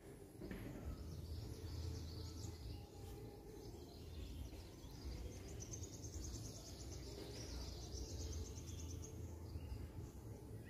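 Outdoor background noise: a low, uneven rumble with faint bird calls, and a rapid high trill from about five and a half to nine seconds in.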